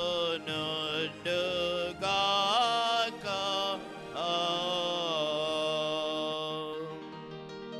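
A voice chanting a sung liturgical response in short phrases over a keyboard holding a chord. The singing fades out about seven seconds in, leaving the keyboard.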